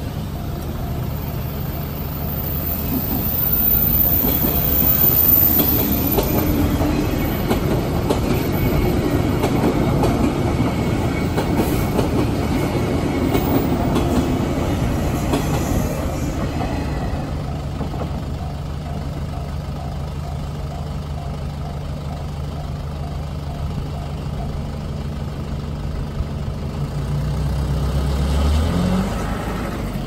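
Resort Yamadori, a converted 485-series JR excursion train, passing over a level crossing, loudest for roughly the first half. The crossing's JR-standard electronic alarm rings in a steady repeating beat, carrying on after the train has gone. Near the end a waiting vehicle pulls away with a rising engine note.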